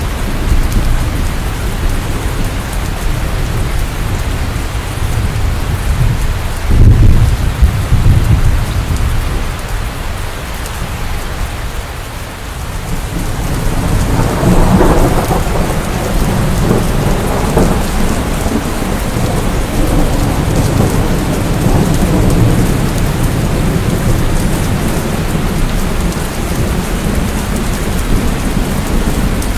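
Steady rain with rolling thunder: a loud low rumble about seven seconds in, then another long roll that builds from about halfway and lingers.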